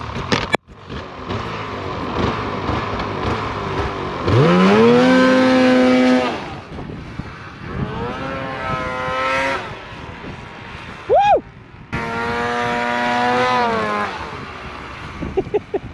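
Snowmobile engine revving hard three times. Each rev climbs quickly in pitch, holds for a second or two, then drops back. A short, sharp rising-and-falling tone comes between the second and third revs.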